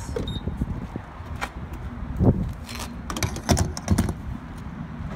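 A short high beep from a gas pump, then a run of clicks and clunks of handling at the pump and car, over a low steady hum.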